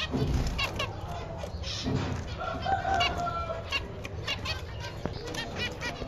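Caged white zebra finches calling: many short chirps in quick, uneven succession from several birds, with a few low thumps.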